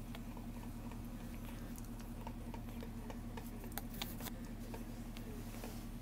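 Faint scattered clicks and smacks from newborn bullmastiff puppies nursing and shifting against their mother, over a steady low hum.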